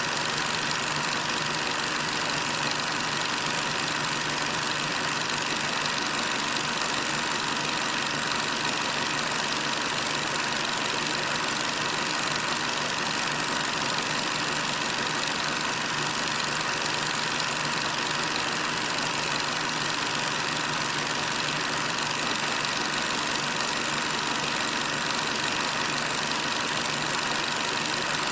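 Steady hiss with a faint constant hum, unchanging throughout, with no footsteps, voices or other distinct sounds: the noise of an old recording.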